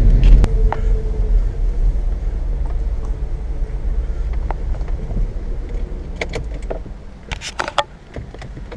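Car driving, heard from inside the cabin: a low road and engine rumble that fades away as the car slows and pulls up to a stop. A couple of sharp knocks come near the start, and a cluster of clicks and knocks near the end once the car has stopped.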